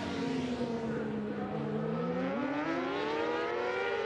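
Several middleweight racing sportbike engines running hard together. Their pitch drops as they slow, then climbs steeply from about halfway through as they accelerate again.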